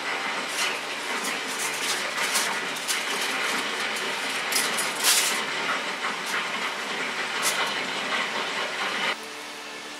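Crinkling and rustling of a clear plastic bag being handled, in irregular bursts over a steady hiss; the hiss drops off suddenly near the end.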